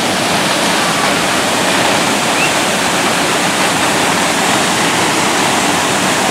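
Rifle Falls waterfall: a loud, steady rush of falling water with no break.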